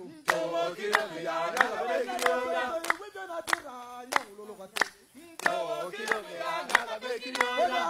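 A group of voices singing together in chorus, over sharp percussive beats about three a second. The singing and beats drop out briefly about five seconds in, then resume.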